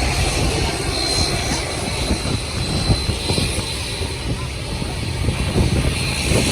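Jet airliner engines rumbling at takeoff power: a steady, loud, low rumble with an irregular crackle running through it.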